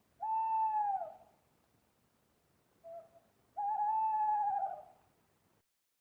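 Owl hooting: two long, steady hoots about three seconds apart, with a short faint note just before the second.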